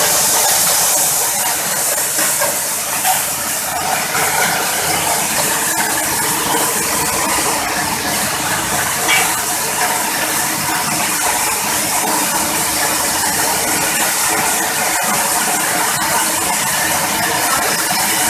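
Coffee huller driven by a small single-cylinder petrol engine, running steadily while hulling dry coffee beans: a loud, steady rushing hiss over the engine's drone.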